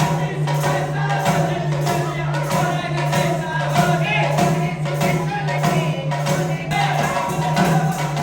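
Music with a steady beat, about two and a half strikes a second, over a held low note.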